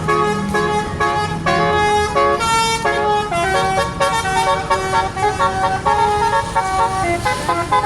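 Vehicle's basuri melody horn playing a tune: a continuous run of loud horn notes stepping up and down in pitch, a few notes a second.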